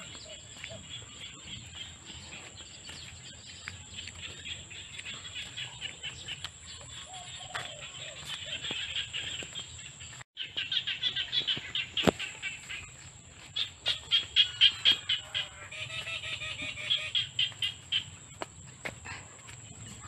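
Countryside chorus of insects and birds: a steady high-pitched insect whine, with rhythmic pulsing chirps that grow louder in the second half and a few lower calls. The sound drops out for an instant about ten seconds in.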